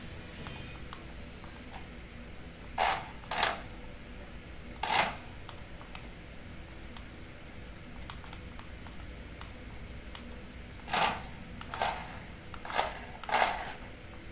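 A small toy car moving over a concrete floor in short spurts: seven brief scraping bursts, three in the first five seconds and four close together near the end, over a faint steady hum.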